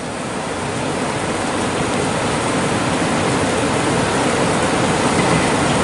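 Steady rushing of a river's current, getting a little louder over the first couple of seconds and then holding even.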